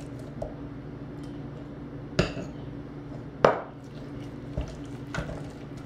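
Kitchen utensils knocking on a pot while an egg is added to and worked into pâte à choux (churro dough): two sharp knocks about a second apart, then a few lighter ticks, over a steady low hum.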